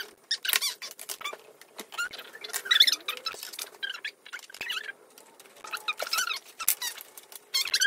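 Thin wooden kit pieces squeaking and clicking as they are pushed and rubbed into their slots, in many short, irregular high-pitched squeaks.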